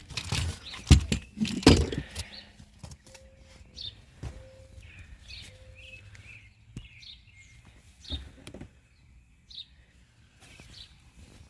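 Loose items knocking and clattering as they are handled in a car trunk, loudest in the first two seconds, then a few lighter knocks. Birds chirp now and then throughout.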